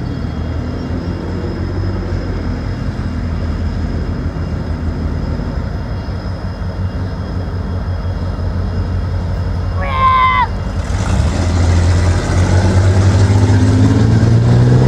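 Diesel freight locomotives approaching, their engines running as a steady low drone that grows louder over the last few seconds as the train nears. A short horn toot sounds about ten seconds in.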